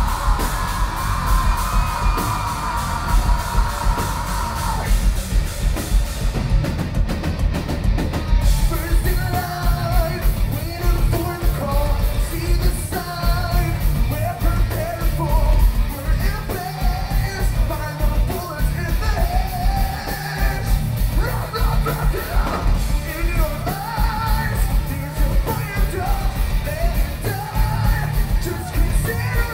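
Live rock band playing loud: electric guitars, bass guitar and a drum kit, with a lead singer singing and yelling over them.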